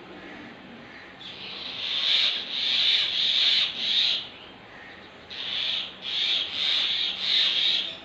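Common mynas giving repeated harsh alarm calls in two runs, about four calls each, with a pause of about a second between them: scolding calls of the kind mynas use when mobbing a monitor lizard.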